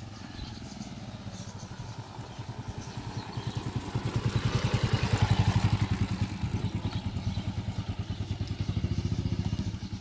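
Motorcycle engine running at low speed, a steady rapid pulsing of the exhaust that grows louder for a few seconds around the middle and then eases.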